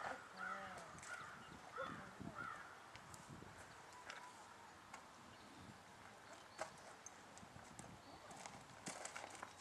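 Horse's hooves stepping on soft dirt as it pivots around its hindquarters: a few faint, scattered hoof thuds and clicks. Faint bird calls in the first couple of seconds.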